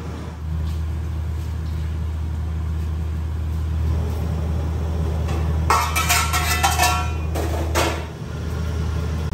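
Steady low mechanical hum, with a run of brief clattering sounds about six to eight seconds in.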